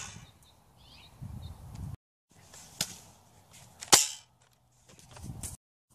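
Nerf blasters firing: two sharp pops about a second apart, the second the louder.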